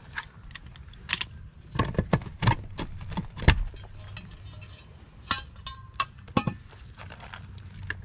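Sheet-metal cover and pull-out of an outdoor AC disconnect box being handled: a string of sharp metallic clicks and clinks, the loudest about three and a half seconds in, one with a brief ring.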